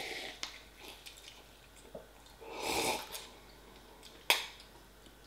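Slurping instant pot noodles from the cup, eaten with a fork: a long slurp at the start and another about halfway through. A single sharp tap near the end.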